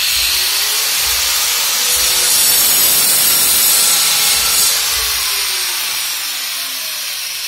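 Corded electric drill running as it bores into a plastered masonry wall: a loud, steady rushing noise that eases off over the last few seconds.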